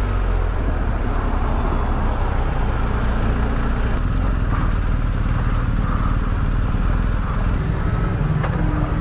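BMW R 1250 GS motorcycle's boxer-twin engine running steadily under way, heard from the bike.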